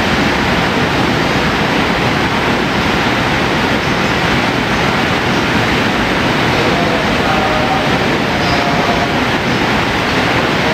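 Steady, even noise of an EF510 electric locomotive standing at a platform with its onboard equipment running, with faint voices of onlookers now and then.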